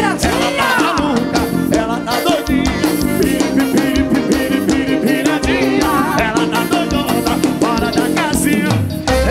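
Live forró band playing a fast dance beat on drum kit, with accordion and horns (saxophones and trombone) carrying the melody.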